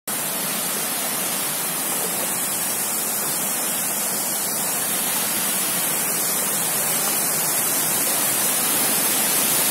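Small waterfall pouring over a stone weir into a shallow rocky stream: a steady rush of falling water that grows slightly louder near the end.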